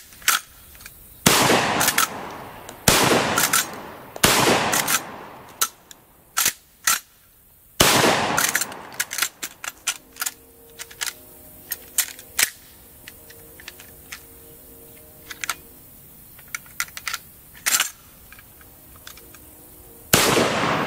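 Chiappa 1887 T-Series 12-gauge lever-action shotgun fired four times in the first eight seconds, the first three about a second and a half apart, each blast ringing out. Short metallic clicks and clacks of the lever and action being worked come between shots and then in a long run, and there is another loud bang near the end.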